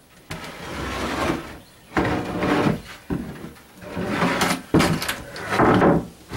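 A sheet of marine-grade plywood scraping and sliding over the boat's stringers and bulkhead edges as it is worked into place for a deck panel. It goes in about five rough scraping pushes, each about a second long, several starting with a knock as the board drops or catches.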